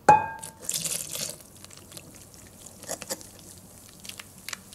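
Metal wire whisk striking a glass mixing bowl with a short ring, the loudest sound, right at the start, then the wet swish and splash of milk poured in a thin stream into batter while whisking, with a few light clinks of the whisk on the glass.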